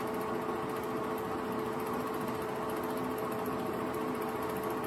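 8mm film projector running: a steady motor hum with an even, fast mechanical chatter from the film transport.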